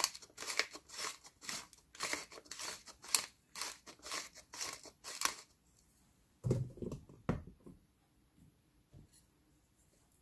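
Pepper mill grinding black pepper, a run of short scratchy crunching strokes, about two or three a second, that stops after about five seconds. A few dull knocks follow, then it goes quiet.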